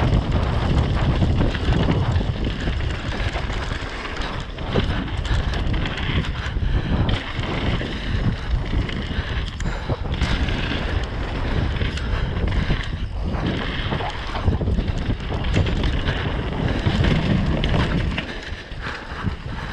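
Wind buffeting an action camera's microphone at speed, over the rumble of a downhill mountain bike's tyres on a rough trail and the constant rattle and knocking of the bike.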